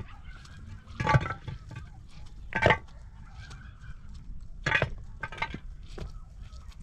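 Hollow concrete blocks knocking and scraping against each other as they are set in place, a few sharp knocks a second or two apart.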